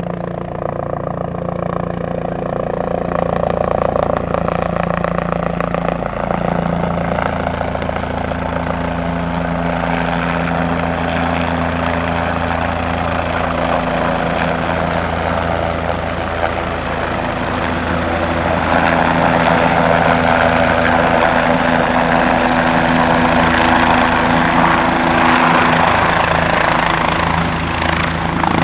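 Twin-turbine Bell 427 helicopter approaching and hovering low: the rotor beats steadily under a high turbine whine, growing louder about two-thirds of the way in.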